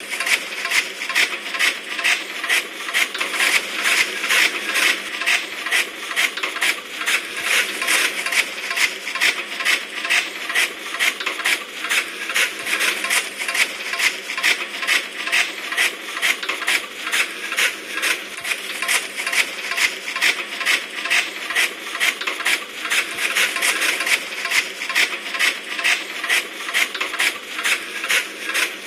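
Chaff cutter machine running, its mechanism clacking in a steady rhythm of about two to three strokes a second.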